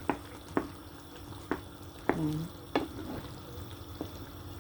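A spoon knocks and scrapes against a cooking pan, about five sharp knocks, while flour is stirred into a simmering Coke sauce to thicken it, over a faint steady simmer.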